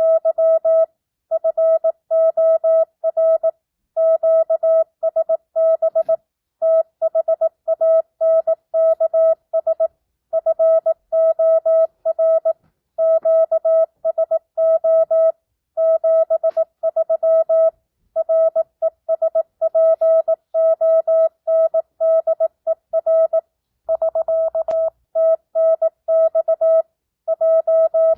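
Morse code (CW) practice tone keyed at 18 words per minute with non-Farnsworth spacing, sending a simulated two-way ham radio contact: a steady mid-pitched beep broken into dots and dashes, grouped into characters and words. Near the end the tone holds unbroken for about a second.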